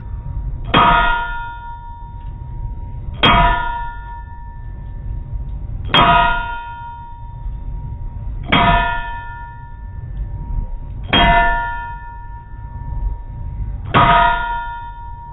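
Blacksmith's hammer striking steel on an anvil during forging: six evenly spaced blows about two and a half seconds apart. Each blow is a ringing clang that hangs on until the next.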